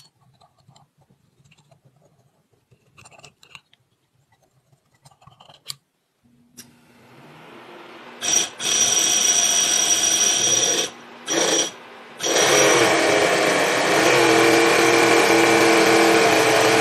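Toyan miniature V8 model engine being started: a few light clicks and handling sounds at first, then a faint steady whine about six seconds in, and the engine catches about eight seconds in with a high, buzzing run like a small power tool. It cuts out briefly twice, then keeps running steadily.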